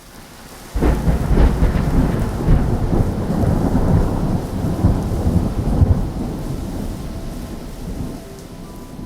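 Thunder sound effect: a sharp crack about a second in, then a long low rumble that slowly fades.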